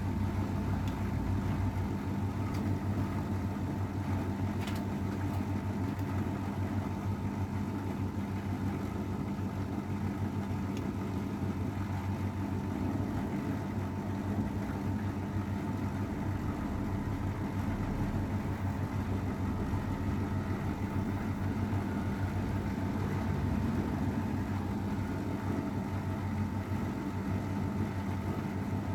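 AEG Öko-Lavamat 693 washing machine running steadily: a constant motor hum with a thin, high whine, without pause.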